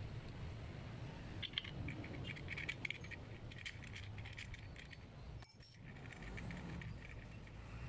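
Light metallic clinking and jingling of steel parts being handled as a metal blade and its cup washer are seated on a brush cutter gearhead, the clinks bunched in the first half and lighter afterwards.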